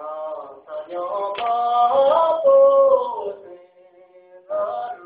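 A man singing a Tibetan folk song unaccompanied, in long held notes that slide between pitches, played through an auditorium's sound system. The voice drops away about three and a half seconds in and returns briefly near the end.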